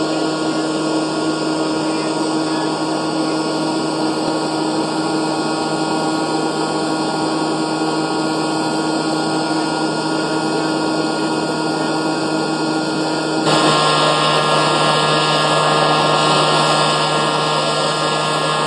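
Steady whir of a motor-driven blower with a constant hum under it. About 13 seconds in, it steps up louder and brighter, then holds steady again.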